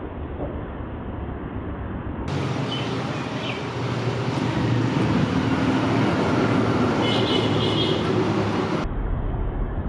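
Road traffic noise: a steady rumble of motor vehicles that grows louder toward the middle, with a few faint high chirps.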